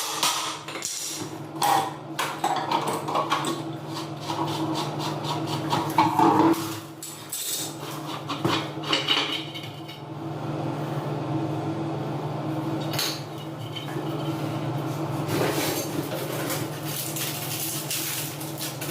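Metal clinks and knocks of a tool working on an electric water heater, loosening its heating element (coil) for removal, over a steady low hum.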